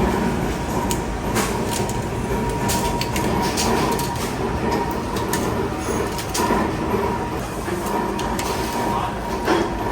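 Workshop machinery running steadily, with irregular metallic clicks and knocks over it and a faint steady whine.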